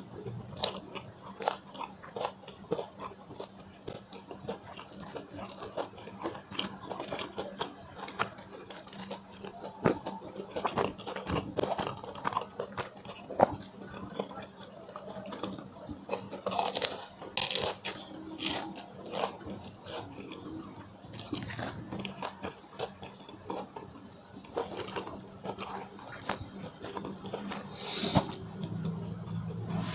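Close-miked eating sounds: bites, chewing and wet mouth clicks and smacks in an irregular stream, with a few louder bites about halfway through and near the end.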